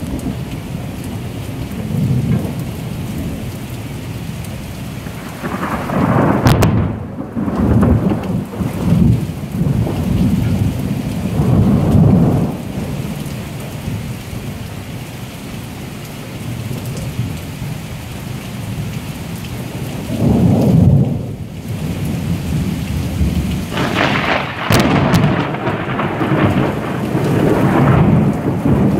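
Thunderstorm: steady rain falling throughout while thunder rumbles in several rolling swells, with two sharp cracks, one about a quarter of the way in and one near the end.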